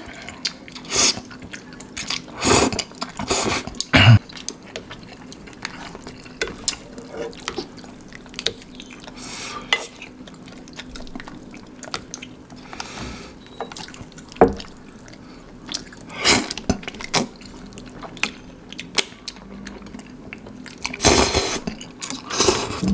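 Spicy instant noodles in sauce being slurped and chewed: wet mouth sounds coming in irregular short bursts, with sharp clicks here and there.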